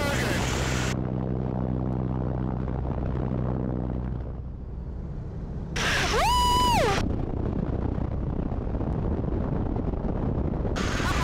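Boeing Stearman biplane's radial engine running with wind rush through the open cockpit; the steady engine drone drops away for a moment about four seconds in. About six seconds in, the passenger lets out one loud whoop that rises, holds and falls.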